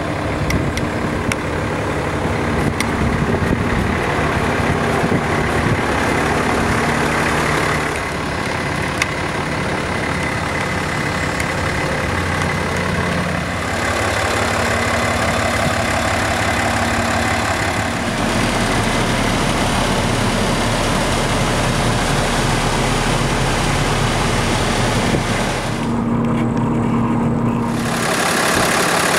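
2008 Peterbilt 340 dump truck's diesel engine idling steadily; the character of the engine note changes abruptly a few times.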